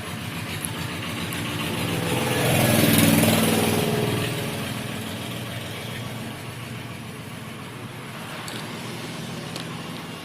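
A motor vehicle's engine running, swelling to its loudest about three seconds in, then fading back to a steady hum.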